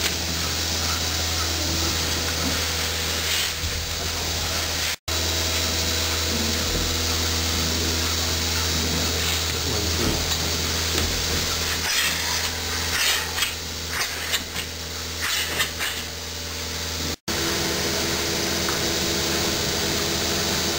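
Milking machine running: the steady drone of its vacuum system, with irregular bursts of hissing about two thirds of the way through as the teat cups are put onto the cow's teats.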